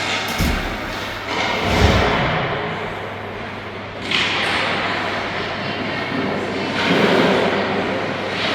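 Ice hockey arena sound during play. There are two low thumps in the first two seconds, such as a puck or players hitting the boards, and swells of scraping hiss from skates. Under it all runs a steady low hum.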